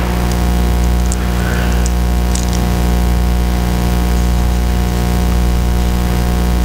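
Loud, steady electrical mains hum with a buzzy stack of overtones, with a few faint small clicks over it.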